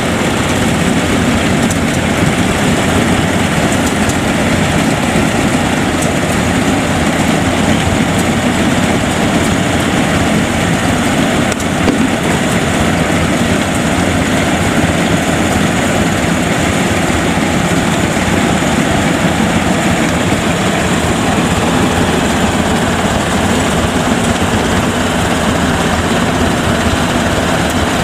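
Yanmar YH85 rice combine harvester running steadily under load as it cuts lodged rice in a waterlogged paddy, its diesel engine and cutting and threshing machinery making one continuous din.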